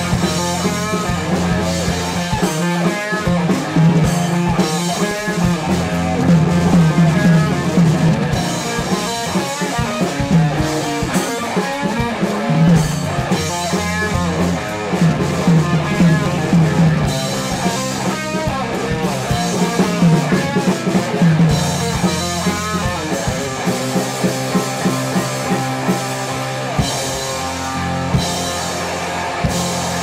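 Rock band playing live: electric guitar, bass guitar, drum kit and keyboard, with a strong bass line.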